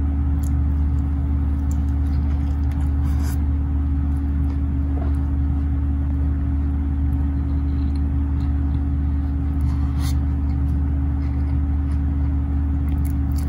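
A steady low mechanical hum with a constant droning tone that does not change, and a few faint clicks from a man chewing a burger.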